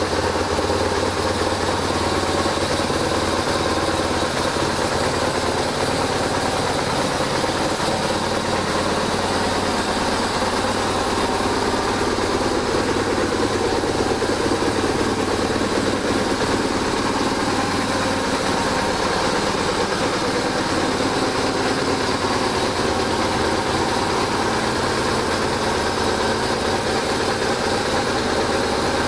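BMW R1150RT's air/oil-cooled boxer twin engine idling steadily.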